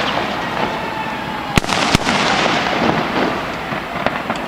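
Aerial fireworks display: a continuous crackling hiss from the shells, with two sharp bangs close together about a second and a half in.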